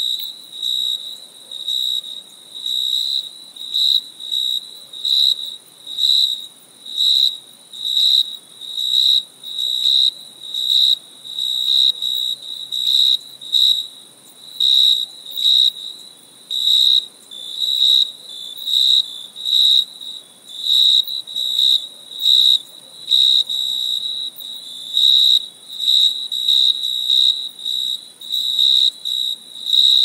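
Crickets chirping at night in a steady high-pitched pulse, a little under two chirps a second, with a fainter, higher insect trill running behind.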